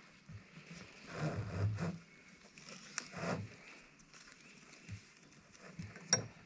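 Rustling and handling noises, with two louder scuffling spells and a couple of sharp clicks, the second one near the end.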